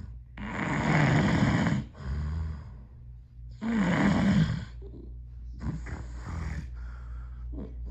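A man snoring loudly in his sleep: two long, loud, rasping snores about three seconds apart, each followed by a softer breath.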